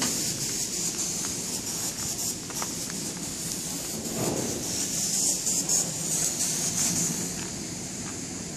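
A steady hiss with a low rumble beneath it and a few faint clicks, swelling a little about four to seven seconds in.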